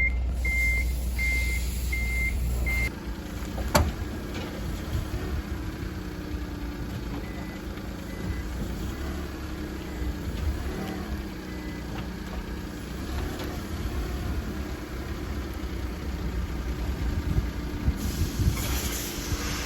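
Nissan Otti kei car: a reverse warning chime beeps about five times, a sharp click comes near 4 seconds, then the car rolls with a low rumble and irregular low knocks. Those knocks are the abnormal noise on turning the steering, caused by a broken front coil spring.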